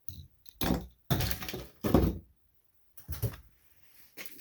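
Things being cleared off a workbench by hand: a series of irregular knocks, clatters and scrapes, with the loudest clatter about two seconds in.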